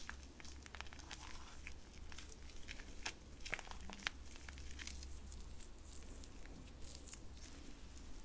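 Close-miked hands rubbing and pressing together, giving a dense run of irregular soft crackles and small sticky clicks.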